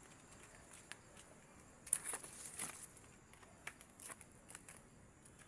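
Irregular rustling and crackling, with a cluster of louder crackles about two seconds in and scattered clicks after.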